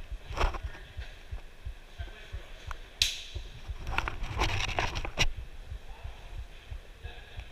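Handling noise from an airsoft player's gear and rifle: repeated low bumps, a sharp click about three seconds in, and a run of clicks and rattles as the rifle is raised.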